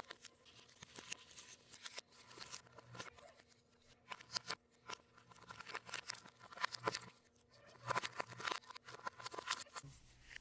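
Packaging being handled by hand: irregular crinkling, tearing and rustling with small clicks, coming in clusters with short pauses between.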